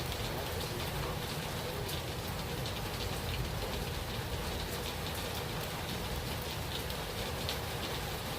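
Steady rain falling, with scattered ticks of individual drops hitting surfaces.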